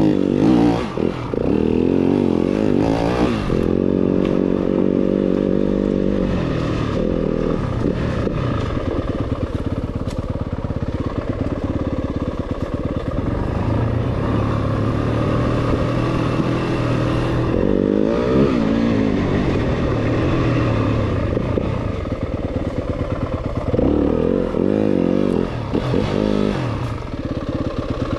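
Yamaha enduro dirt bike's single-cylinder four-stroke engine running under load on a slow trail ride, its pitch rising and falling again and again as the throttle is opened and closed.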